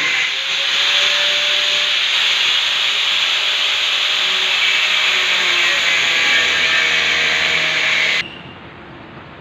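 Steady, continuous sanding noise during ceiling repair work, which cuts off abruptly near the end.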